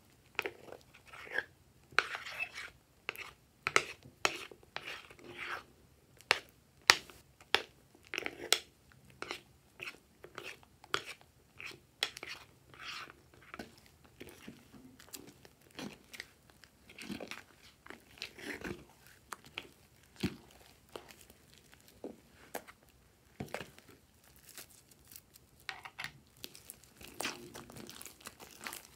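Slime being squished, kneaded and stretched by hand in a glass dish: irregular sticky clicks, pops and crackles, several a second.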